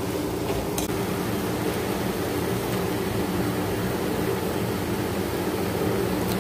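A steady mechanical hum with an even hiss, like an electric fan running, with a light click about a second in and another near the end.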